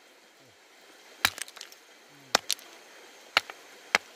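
Sharp clacks of river stones knocking together, about six of them, some in quick pairs, over a faint steady rush of river water.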